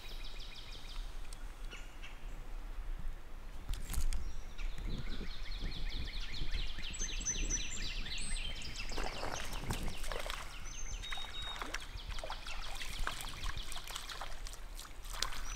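Creek-side ambience: birds chirping with a rapid high trill over faint running water, and a single knock about four seconds in.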